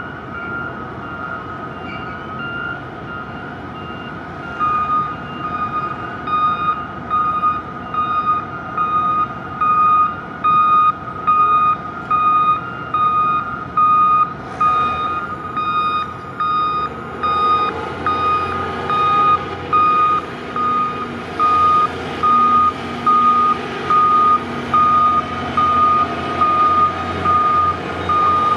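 Straddle carrier's warning beeper, a high beep repeating about once a second, starting a few seconds in over a fainter steady tone. The machine's engine runs underneath and gets louder about two-thirds of the way through.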